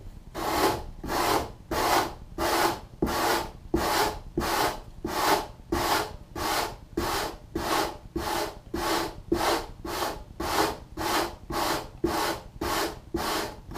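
Hand sanding block rubbed back and forth over the exposed foam along a wing's hinge line, an even run of scratchy strokes about two a second: excess foam being sanded away to form the hinge bevel down to the Kevlar hinge.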